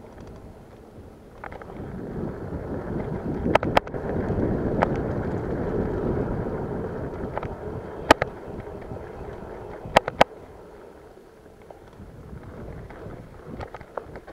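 Wind buffeting the microphone over the rolling rumble of a BMX bike being ridden, swelling for a few seconds and then easing off, with a few sharp clicks and rattles, a pair about a second in and another pair near the end.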